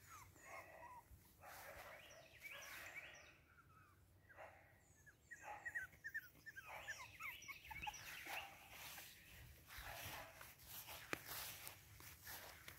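Faint, high-pitched whimpers and short yips from Boston Terrier puppies, coming in scattered bursts.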